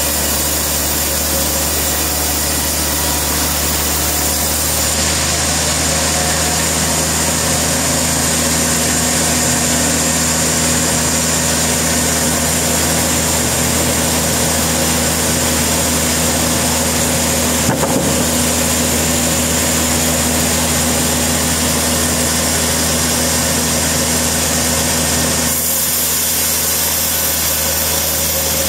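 A sawmill's engine running at a steady speed, with a single sharp click about eighteen seconds in.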